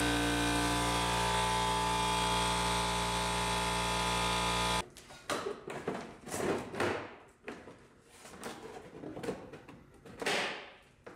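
A power tool runs with a steady hum for about the first five seconds, then cuts off suddenly. After that a car's plastic front wheel-well liner is pulled and worked free by hand, with irregular rustling and scraping of plastic.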